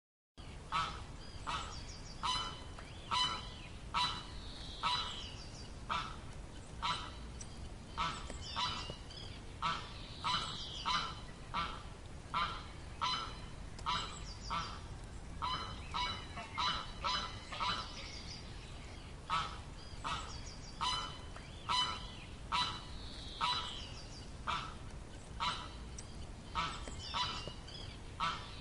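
Goose honking over and over, short nasal honks about once a second over a steady low background hiss.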